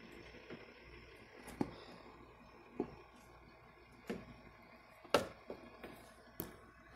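Five sharp clicks and knocks close by, the loudest about five seconds in, over a faint steady low hum.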